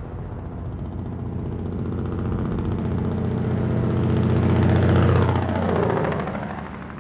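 Loaded log truck passing on the highway with its engine brake on. The low engine drone builds, peaks about five seconds in as the truck goes by, then drops in pitch and fades.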